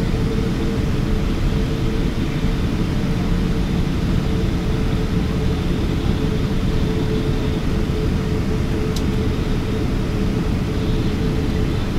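Cabin noise of a Boeing 777-200ER taxiing, its Rolls-Royce Trent 800 engines at low taxi thrust: a steady rumble with a constant hum tone through it.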